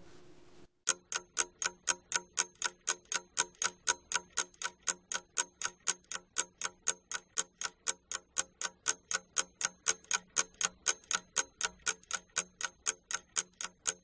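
Ticking-clock sound effect used as a timer for a class exercise: an even, fast tick at about three to four ticks a second, starting about a second in.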